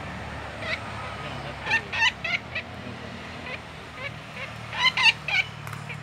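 Harsh distress calls of a red-backed flameback (red-backed woodpecker) held in the hand while a string is freed from its foot. The calls come in three bursts of rapid notes, the loudest about five seconds in.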